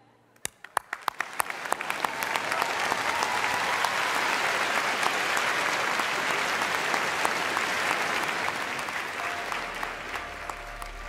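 Theatre audience applauding: a few sharp claps about half a second in quickly swell into full, dense applause, which eases off a little near the end.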